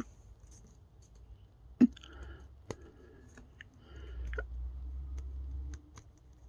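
Small plastic clicks and handling rustle as a plastic action figure and its rifle accessory are handled and the rifle is fitted into the figure's hands; one sharp click just under two seconds in is the loudest, and a low rumble runs from about four seconds in to near six.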